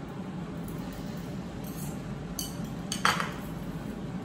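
Kitchen utensils clinking against dishware: a couple of light clicks and then one sharper clink with a short ring about three seconds in, over a steady low hum.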